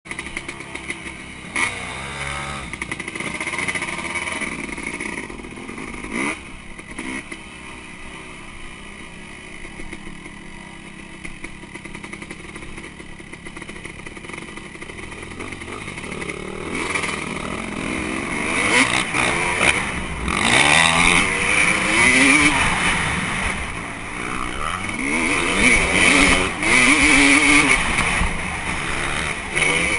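Dirt bike engine running on a motocross track, heard from an onboard action camera. It is fairly steady at first, then louder from about halfway in, revving up and down repeatedly.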